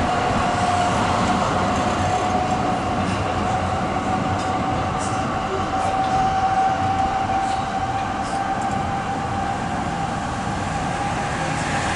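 Zürich tram running along street track, heard through an open window: steady running noise with a clear whine that slowly rises in pitch, and a few faint ticks.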